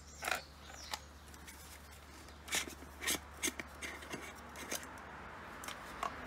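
Hands handling and twisting a plastic float thermometer: scattered light clicks and rubbing of hard plastic, with a few sharper clicks.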